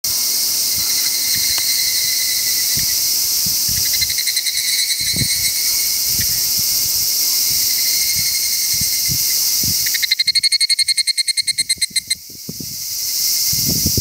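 Higurashi (evening cicadas) singing: a steady high-pitched chorus, with a pulsed call joining about four seconds in. About ten seconds in, a close one gives its loud, rapidly pulsing call of about nine beats a second, which stops suddenly after two seconds.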